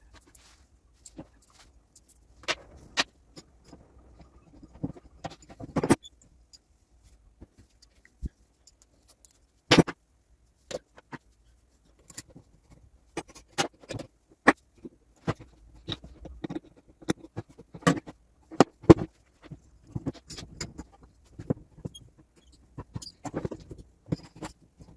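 Irregular clicks, taps and knocks of parts and tools being handled while reassembling a Gaggia Classic espresso machine, with a few sharper knocks among them.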